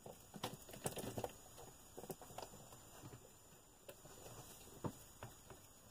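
Faint, scattered clicks and scrapes of small plastic and metal parts on an RC buggy's rear suspension being handled as a drill bit is pushed in to line up a shaft with its hole. The clicks are busiest in the first second or so, then come only now and then.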